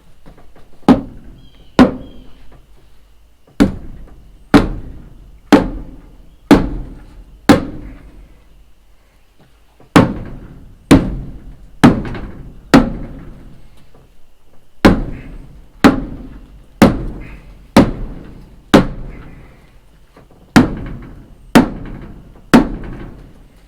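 Hammer blows on timber, about one a second, in runs of four or five with short pauses between.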